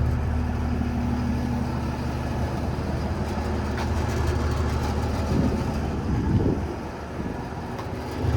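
The 6.7-litre Cummins ISB diesel of an International 4400 truck idling steadily, a little quieter for a moment near the end.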